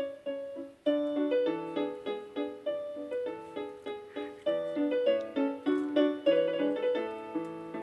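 A piano-like keyboard melody of single, quickly fading notes, about three a second.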